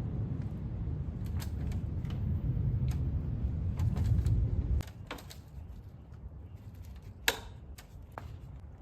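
A low rumble that cuts off suddenly about halfway through, followed by scattered sharp clicks and taps of parts being handled, with one louder snap near the end.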